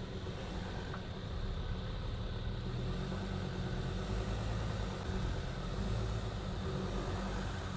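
Vehicle engines running at low revs, a steady low note that swells slightly in the middle, as a ute tows a stuck car out of a gravel trap.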